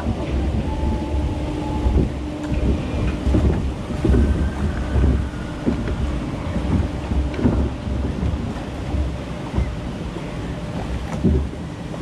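Wind buffeting the microphone in a low rumble over water sloshing around a log flume boat drifting along its channel, with a few dull knocks every second or two.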